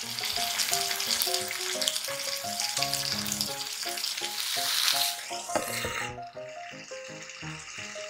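Flour-dusted chicken pieces sizzling in oil in a frying pan, a dense hiss that drops to a much fainter sizzle about six seconds in.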